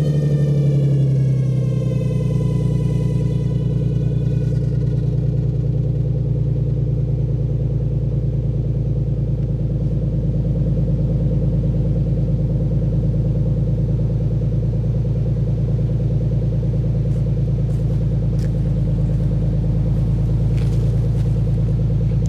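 2002 Dodge Intrepid's 2.7-litre V6 idling steadily just after a cold start. A high whine falls in pitch and fades over the first few seconds.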